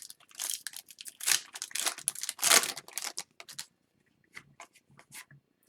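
Hockey card packs and cards being handled: crinkling and rustling in quick bursts for about three and a half seconds, then a few light ticks.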